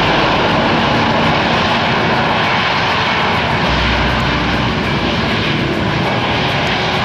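Jet airliner engines at high power passing close by: a loud, steady rushing noise that holds at an even level.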